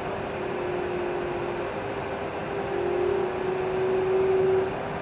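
Simulated jet engine sound of a Boeing 737 Classic full flight simulator: a steady drone with a hiss, its tone wavering slightly and growing louder from about three seconds in before settling back near the end.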